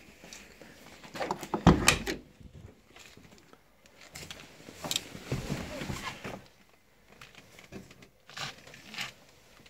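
Clunks and rustles of someone getting into a parked car's cabin and handling the phone, with the loudest thump about two seconds in and smaller knocks later.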